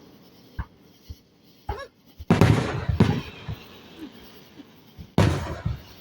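Aerial firework shells exploding: two big booms about three seconds apart, each trailing off in a rumble and crackle, with a few small pops before the first.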